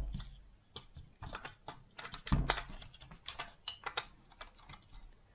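Irregular light clicks and taps of an AR-15 pistol grip being handled and pressed onto the rifle's lower receiver, with a somewhat louder knock about two and a half seconds in.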